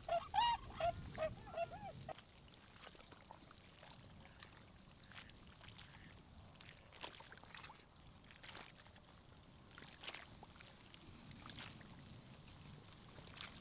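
A flock of swans calling as they fly over: a quick run of short, high, repeated calls in the first two seconds, then only faint scattered ticks.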